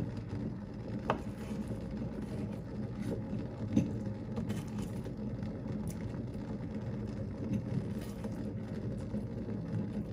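Kitchen knife slicing through a block of extra-firm tofu and tapping down on a bamboo cutting board, a few sharp knocks with the loudest about four seconds in, over a steady low hum.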